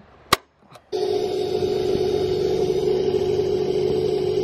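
A spring-loaded automatic center punch snaps once on the fiberglass pop-top roof. About a second in, a cordless drill with a 3/8-inch bit starts and runs at a steady pitch, drilling through the fiberglass.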